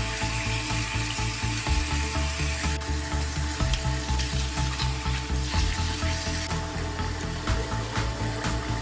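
Background music with held tones and a changing bass line, over a steady scratchy, sizzling noise.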